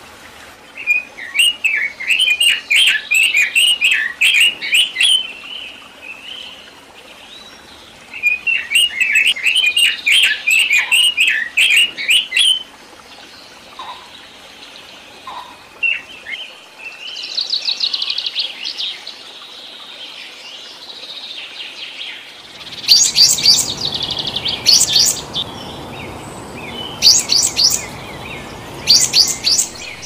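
Songbirds singing, several different songs in turn: two long phrases of fast twittering notes in the first half, a short high trill in the middle, then sharp high calls over a steady rushing background in the last third.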